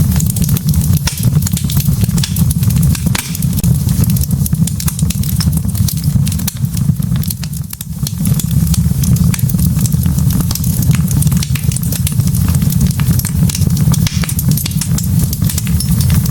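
Wood logs burning in a fireplace: a steady low rumble of flame with rapid, irregular crackles and pops throughout, briefly easing about eight seconds in.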